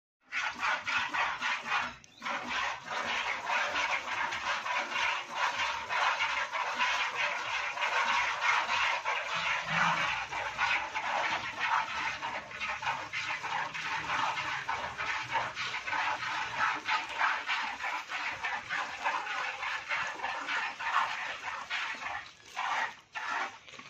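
Hand-milking a cow: milk jets squirting into a plastic bucket in a quick run of hissing squirts, with a short break about two seconds in and another near the end.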